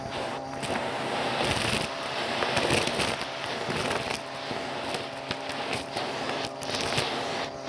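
Bissell PowerLifter upright vacuum running through its hose and crevice tool, sucking up dust, sequins and small beads from a shag rug: a steady motor hum with rapid crackling and clicking as the grit is pulled into the nozzle.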